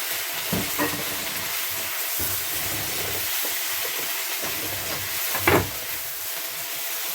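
Chicken liver and kidney sizzling in a pan with oil, aromatics and stock: a steady sizzling hiss, with light clicks near the start and one sharp knock against the pan about five and a half seconds in.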